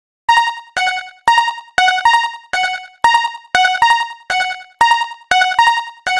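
Japanese railroad-crossing (fumikiri) alarm: an electronic chime striking about twice a second, alternating between two pitches.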